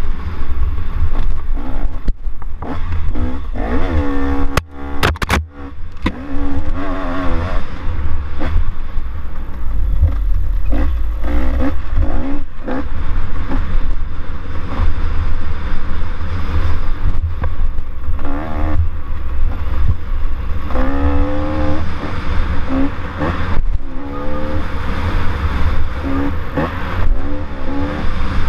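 ATV engine revving up and easing off again and again as the quad is ridden over a dirt trail, with a heavy rumble of wind and bumps on the microphone. About five seconds in the engine briefly drops away and a few sharp knocks sound.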